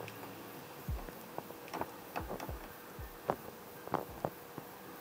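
Hot vegetable oil left in a frying pan after frying chicken, bubbling and sputtering with irregular pops and crackles, about two a second.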